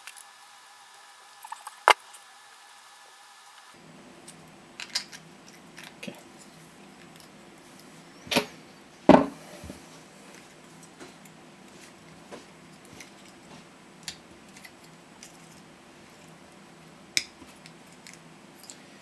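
Scattered small clicks and knocks of a TP4056 charger board and a 3D-printed plastic housing being handled and fitted together by hand, with two louder knocks about eight and nine seconds in.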